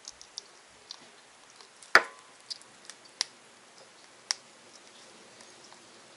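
Small sharp clicks and ticks of fingers working a raw pond smelt on a wooden cutting board as its gills and innards are pulled out by hand, with one louder knock about two seconds in.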